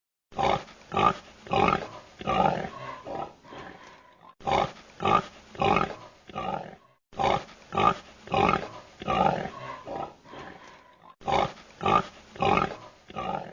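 Domestic pig grunting: a series of short, repeated grunts, the same stretch of recording played four times in a row with brief breaks between.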